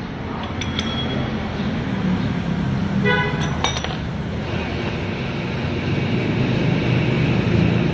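Steady low rumble of a running air compressor and street traffic, with a short vehicle horn toot about three seconds in.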